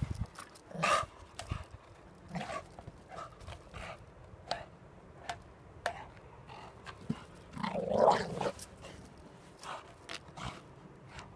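Staffordshire bull terrier making short play noises while wrestling a tyre, the longest and loudest about eight seconds in, among scattered knocks and scuffs.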